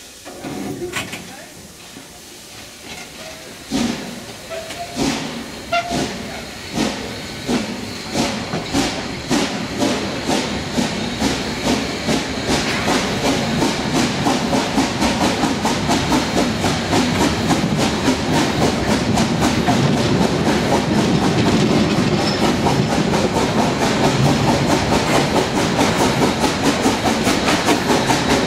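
Narrow-gauge steam locomotive working hard, its exhaust chuffs starting slow and widely spaced a few seconds in, then quickening and getting louder until they run at several beats a second as the train gathers speed, with steam hissing.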